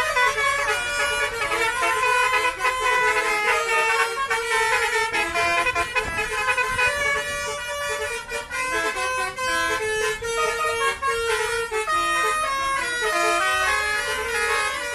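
Basuri multi-tone 'telolet' bus air horns playing tunes, several trumpets sounding at once in quick stepped notes that change several times a second, continuous and loud.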